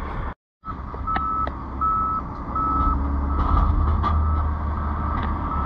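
Wheel loader's backup alarm beeping steadily, one beep about every three-quarters of a second, over the low rumble of its diesel engine as it reverses.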